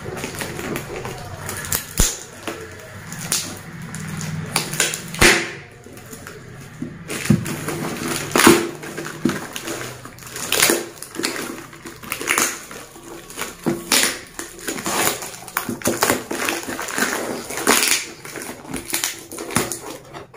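Hands handling and tearing open a taped courier parcel's plastic wrapping: irregular crinkles, rips and rustles with short sharp crackles throughout.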